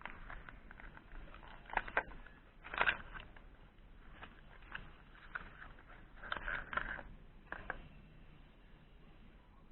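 Irregular clicks and knocks of hand tools and parts being handled, the loudest about two and three seconds in, with a cluster of them between six and eight seconds in.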